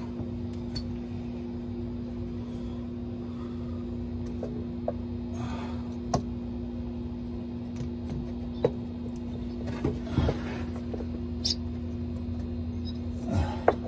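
A replacement cab air-ride bag being handled and fitted into its mount on a truck frame: scattered light clicks and knocks as the rubber bag touches the metal. A steady low hum runs underneath.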